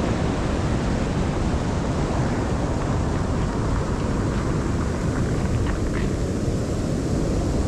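Wind buffeting the microphone over the rush of ocean surf: a steady noise, heaviest as a low rumble.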